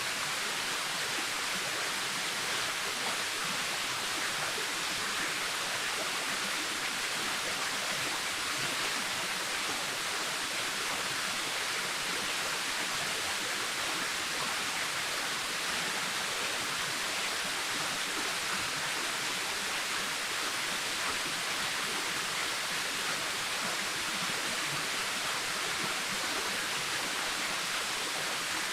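Waterfall: water pouring and splashing in a steady, unchanging rush of hiss.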